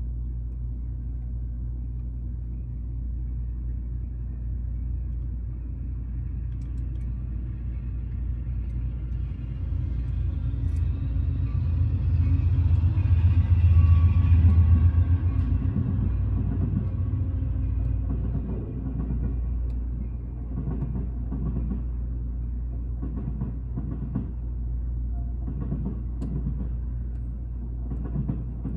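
Amtrak passenger train passing on the rails: a low rumble that swells to its loudest about halfway through, then a run of evenly spaced knocks from the wheels as the cars roll by.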